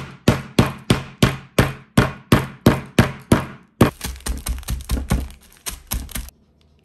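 A hammer striking a wrapped Twix chocolate bar on a tabletop: steady blows about three a second, then a quicker, uneven run of strikes that stops about six seconds in.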